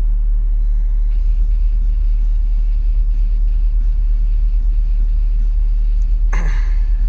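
Steady low vehicle rumble, with a brief voice sound about six seconds in.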